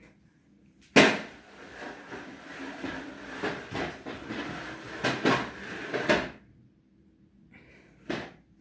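Kitchen handling noises: a sharp knock about a second in, then several seconds of clattering and rubbing with a few smaller knocks, stopping after about six seconds.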